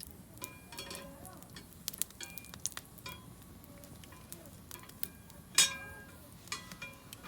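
Metal utensils clinking and scraping against metal cookware during cooking. The strikes are light and irregular, several ring briefly, and one louder clank comes about five and a half seconds in.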